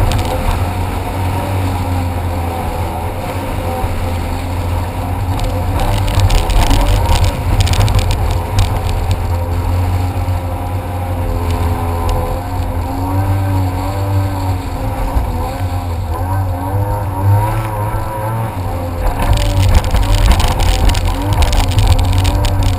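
Jet ski engine running under way, its pitch wavering up and down with the throttle over a steady low drone, with stretches of rushing noise from water and wind.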